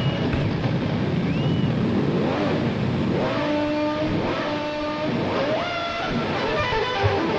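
Dirt bike engine heard from the rider's helmet, revving up and shifting again and again, its pitch climbing and then levelling off about four times, over wind noise.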